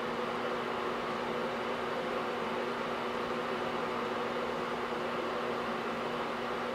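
Steady machine hum and hiss with a few constant low tones, unchanging throughout.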